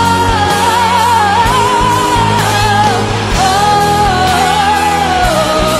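A woman singing a schlager pop song live with a wavering vibrato on held notes, backed by a band with a steady beat and bass.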